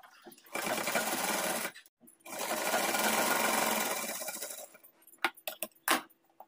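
Sewing machine stitching cloth in two runs, one of about a second and a longer one of about two and a half seconds, with a brief stop between them. A few sharp clicks follow near the end.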